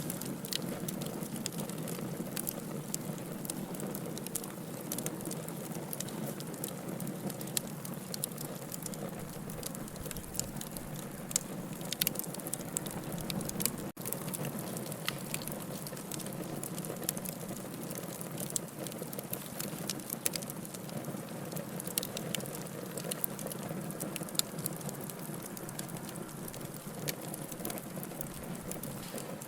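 Campfire burning with a steady crackle and frequent sharp pops of burning wood.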